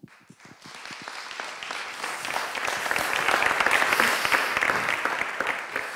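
Audience applauding, building up over the first few seconds and easing off slightly near the end.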